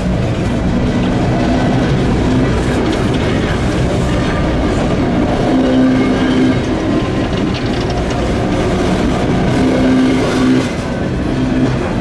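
Empty steel coal gondola cars of a freight train rolling past close by, their wheels running steadily over the rails.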